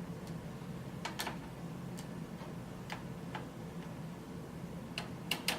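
Scattered light clicks and taps of computer cable connectors being handled and pushed into the motherboard inside a small PC case, with a quick group of three clicks near the end, over a faint steady hum.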